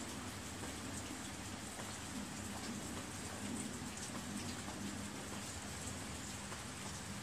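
Steady rain falling, with scattered drops pattering close by.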